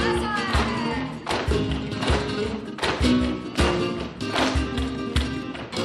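Live flamenco music: guitar and other pitched parts with sharp percussive strikes keeping a quick, steady rhythm.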